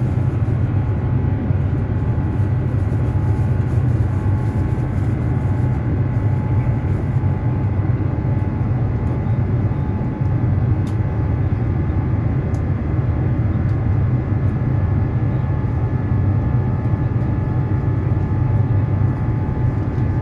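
Steady drone of a jet airliner's engines and rushing air heard inside the passenger cabin: a deep, even hum with a few faint steady whining tones above it, unchanging throughout.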